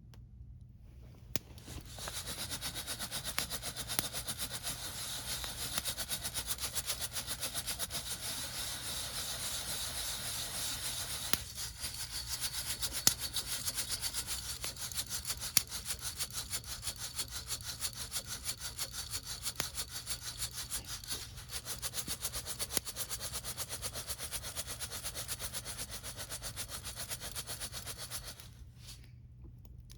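Hand coffee mill grinding freshly roasted beans: a steady, rhythmic crunching scrape as the crank turns, starting a moment in and stopping shortly before the end, with a few sharper cracks along the way.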